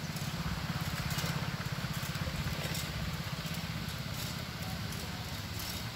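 Metal coconut-tree climbing device clicking sharply against the palm trunk as it is stepped up, several times about a second apart, over a steady low rumble like an engine running.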